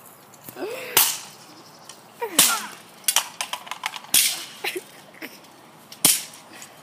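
A plastic toy gun being smashed: four hard, sharp blows about every one and a half to two seconds, with lighter knocks between.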